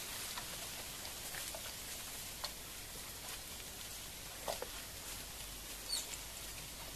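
Scattered light taps and rustles of a cut bamboo stem being handled, over a steady outdoor hiss.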